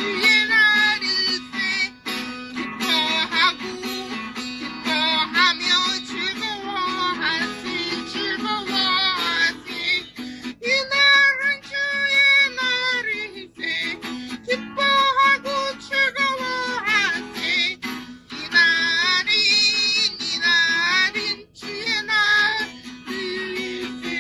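A woman singing a Korean praise song along to an instrumental backing track, her voice carrying the melody with long held notes.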